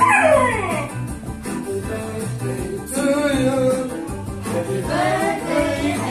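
A song with singing over a steady bass beat, played through a TV's speakers for a birthday video. Near the start a falling whistle-like sweep glides down for about a second.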